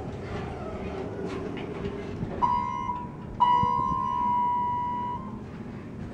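Elevator door buzzer sounding while the doors are held open against closing: a short beep, then a longer one of about two seconds, after a steady low hum.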